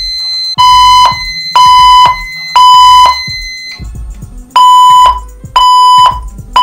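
Fire alarm speaker strobes of a voice-evacuation system sounding the temporal-three evacuation tone: three long tones about a second apart, a pause, then the next group of tones, the signal that comes before the recorded evacuation message. A steady high-pitched electronic tone sounds alongside and stops about four seconds in.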